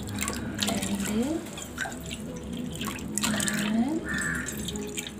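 Water poured in a stream into a steel measuring cup, its pitch rising as the cup fills, twice, with splashing as each cupful is tipped into a wide steel pan of sugar for syrup.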